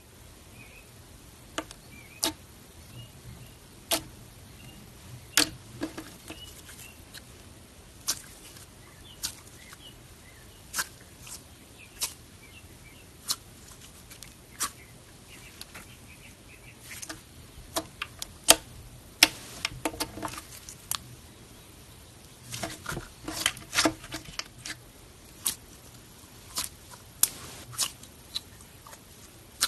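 Slime being pressed and squeezed by hand, giving irregular sharp clicks and pops from trapped air, with a quick run of them about two-thirds through.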